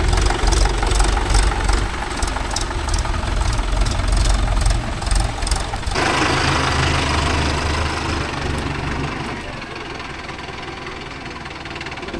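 Tractor diesel engine running near idle. About six seconds in, the sound changes abruptly, and it gets quieter after about nine seconds.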